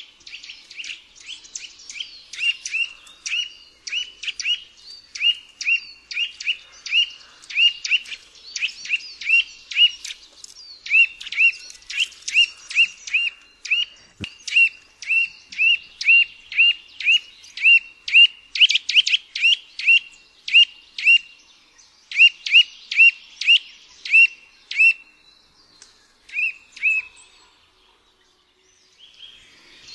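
Eurasian nuthatch calling: a long series of short, clear whistled notes, repeated about two to three times a second, with a brief pause near the end before the notes start again.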